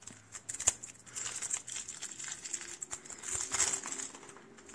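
Plastic shrink-wrap crinkling and rustling as it is pulled off a deck of game cards, with a sharp snap about a second in.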